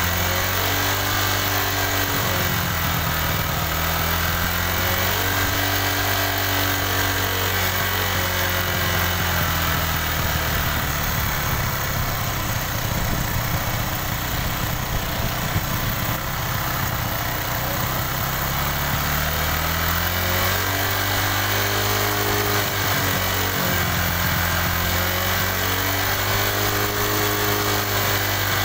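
Honda Dream Yuga motorcycle's small single-cylinder four-stroke engine idling, its speed drifting slowly up and down as the carburettor is tuned for fuel economy. The running gets rougher in the middle.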